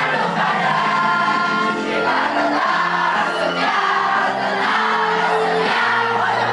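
A group of voices singing together with musical accompaniment.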